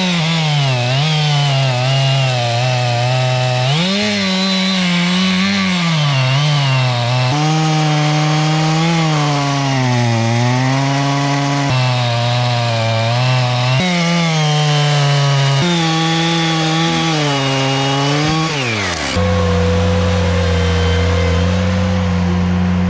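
Chainsaw cutting logs into pieces: the engine's pitch repeatedly sags as the chain bites into the wood and climbs again between cuts. Near the end a steadier, lower engine tone takes over.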